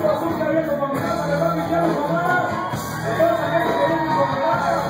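Live regional Mexican band music with a male lead singer, recorded from the crowd in a large club hall.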